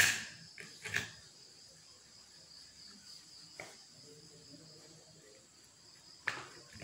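A cardboard craft board knocks against a stone floor as it is shifted, followed by a few lighter taps and knocks of handling. A faint, steady high-pitched whine runs underneath throughout.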